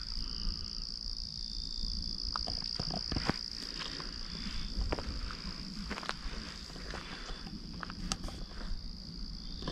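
Steady chorus of insects in the woods, a constant high-pitched drone, with a few scattered light clicks.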